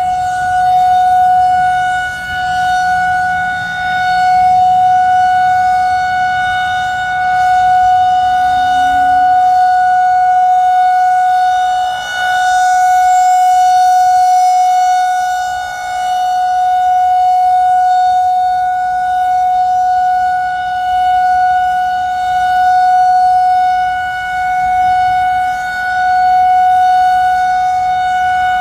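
Federal Signal 2001-130 rotating outdoor warning siren sounding its steady Alert tone: one held pitch that swells and fades in loudness every few seconds as the rotating siren head sweeps past.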